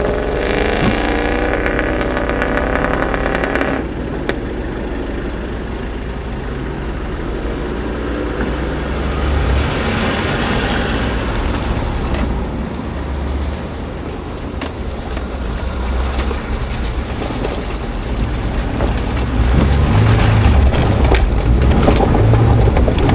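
Off-road 4x4's engine pulling hard over rough ground, revving high for the first few seconds, then easing off and running lower, and getting louder again for the last few seconds.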